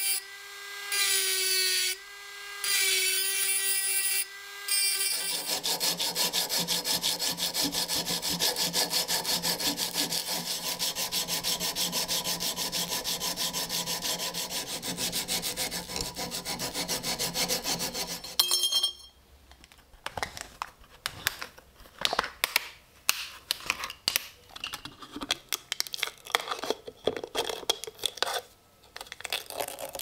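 A rotary tool with a white abrasive ball stone whines as it grinds rust off an antique iron knife blade, cutting out briefly twice. From about five seconds in, a belt sander grinds steadily on the blade until a little past halfway. After that there are scattered clicks and crinkling from handling, with foil being torn from a bottle's mouth near the end.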